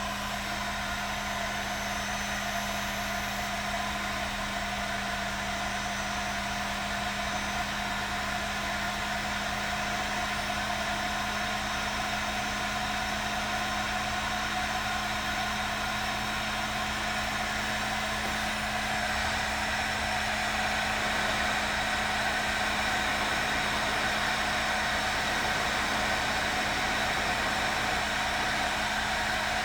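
Heat gun running steadily: a motor hum under a continuous rush of blown air, shrinking the heat-shrink sleeve on a waterproof crimp terminal. It grows a little louder in the second half.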